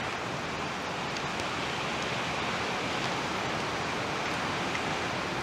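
Steady, even hiss of rain falling outside the garage.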